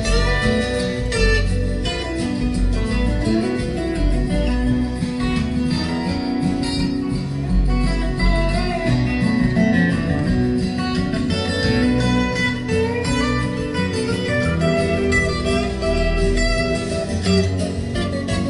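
Instrumental break in a song: plucked guitar lines over a steady bass, with no singing.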